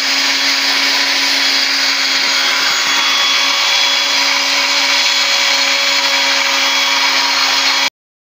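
Electric masonry saw running steadily while cutting into the brick base of a chimney to make a slot for a horizontal damp-proof barrier. It is a constant motor whine with cutting noise and stops abruptly near the end.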